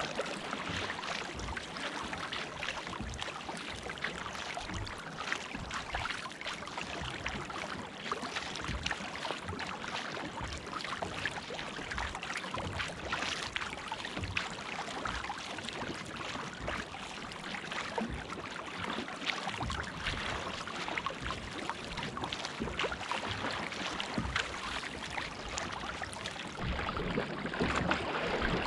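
Sea kayak being paddled through a light chop: continuous rushing and splashing of water along the hull, with irregular splashes as the paddle blades dip in and lift out, shedding spray.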